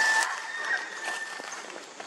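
An animal call held steady on one pitch, fading out about a second and a half in, with a brief scuffling knock at the start.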